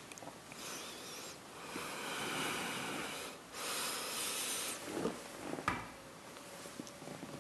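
Small plastic action-figure parts handled between the fingers: soft rubbing and fiddling noise as a clear water-effect piece is fitted to a swap hand, with two small clicks about five seconds in.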